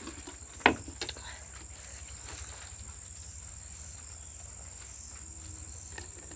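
Crickets trilling in a steady, high-pitched drone, with a sharp click just under a second in and a lighter one about a second in.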